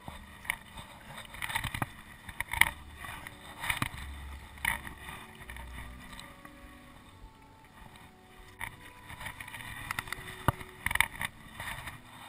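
Paddle strokes from a small paddled boat: irregular splashes and dips in the water, about one a second, with some pauses, over a low wind rumble on the microphone.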